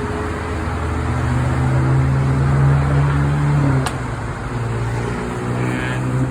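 Car engine idling: a steady low hum under a hiss, the hum dropping a little in pitch about four seconds in.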